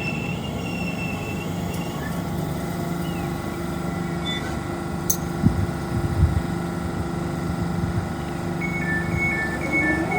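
Electric train standing at the platform, its equipment humming steadily with several held tones. A couple of dull thumps come around the middle, and a repeating two-tone beeping starts near the end.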